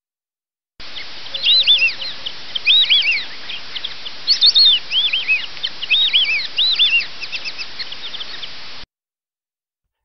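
White-faced whistling ducks calling: many short, clear whistled notes that rise and fall, in quick runs over a steady hiss. The calls start about a second in and cut off suddenly near the end.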